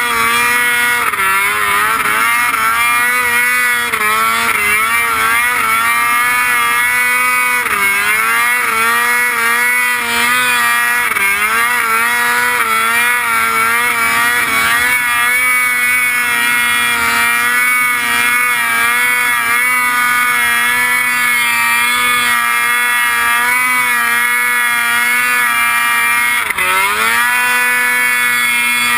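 Snowmobile engine running hard under load while sidehilling up a snow slope, its pitch wavering constantly as the throttle is worked. It drops briefly about 8 and 11 seconds in and more deeply near the end before picking back up.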